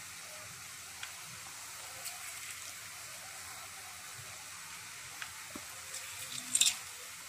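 Chopped vegetables sizzling gently in a kadai over a low gas flame, a steady soft hiss of sautéing. A few faint clicks and one sharper clatter about six and a half seconds in.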